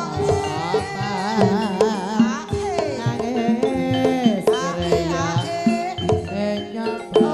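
Javanese gamelan music accompanying an ebeg horse dance: drum strokes and sustained tuned-percussion notes under a wavering, sliding melody line.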